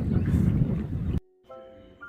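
Wind buffeting the microphone, a loud low rumble, cuts off abruptly about a second in. Soft background music with mallet-struck notes follows.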